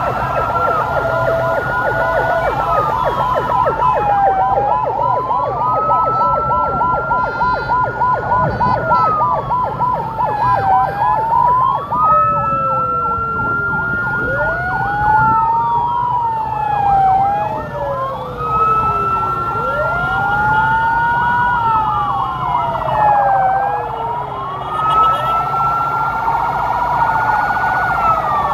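Several emergency-vehicle sirens sounding together. Slow wails rise, hold and fall about every six seconds, with a second, lower wail joining about halfway through. A fast warbling yelp sounds for the first ten seconds or so. Vehicle engines and traffic hum underneath.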